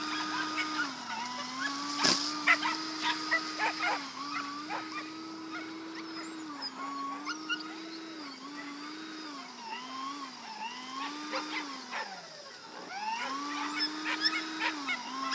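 Electric lure-coursing machine's motor whining steadily, its pitch stepping and gliding up and down as the lure line is sped up and slowed. Dogs bark in short, sharp bursts over it.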